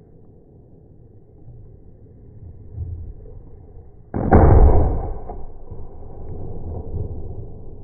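A single gunshot about four seconds in, a sudden loud bang that dies away over about a second, with fainter low thumps before and after.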